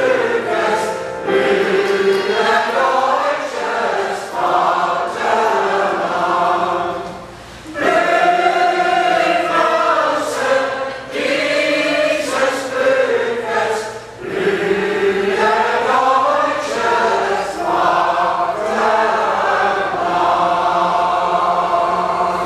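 A choir of mostly women's voices singing a song in long phrases, with short breaks between phrases about seven and fourteen seconds in; the singing stops at the end.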